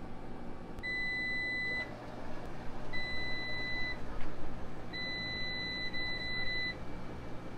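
Electronic beeps from a Speed Queen commercial washer and its CSC card reader as payment is accepted and the start button is pressed: three one-second beeps about two seconds apart, then a few quick short beeps. A steady low hum runs underneath.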